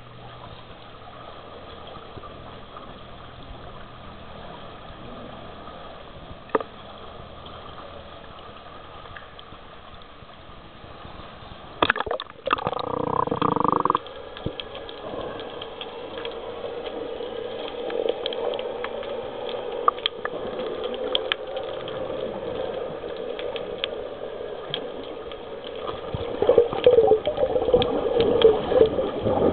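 Sea water heard through a camera that goes underwater: a low steady water hiss, then a loud rush about twelve seconds in as it plunges under. After that come muffled underwater gurgling and bubbling with scattered clicks, louder near the end.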